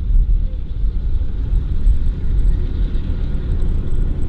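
Low, steady rumble of WWII armored vehicles' engines running.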